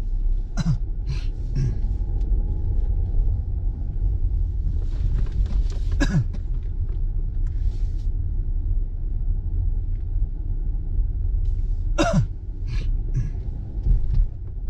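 Steady low road and engine rumble heard inside a moving car's cabin, with a few brief sharp sounds over it, the loudest about twelve seconds in.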